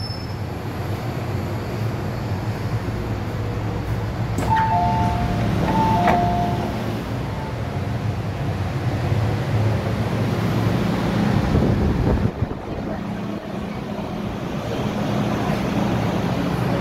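MTR M-Train heard from inside the car, running through a tunnel with a steady rumble of wheels and traction motors. About five seconds in, a two-note falling chime sounds twice over the train's speakers. Near the end the train is slowing into a station.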